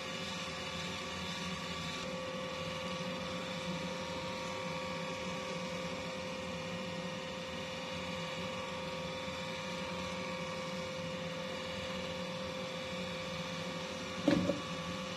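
Steady electrical hum holding several fixed pitches, with one brief louder sound near the end.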